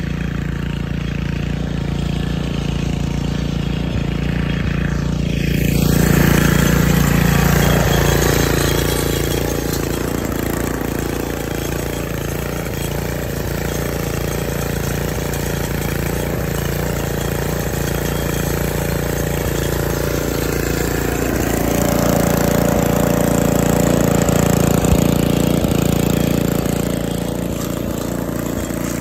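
1973 Snapper snowblower engine running steadily, joined from about five seconds in by the rush of snow being churned and thrown. The sound gets louder twice for a few seconds, near the start and again near the end.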